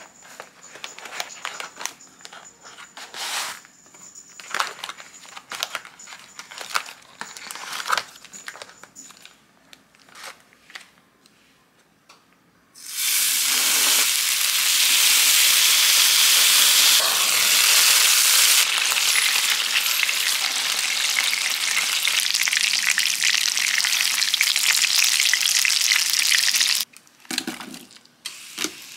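Scattered clicks and crinkles of food packaging being handled, then a whole beef large intestine (daechang) sizzling loudly in hot fat in a frying pan, starting abruptly about halfway through and running steadily until it cuts off shortly before the end.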